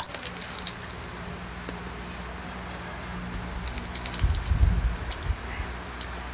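Crunchy BBQ peanuts being chewed close to the microphone, the irregular crunches gathering from about four seconds in, with light crinkling of a small plastic snack packet in the fingers, over a low steady hum.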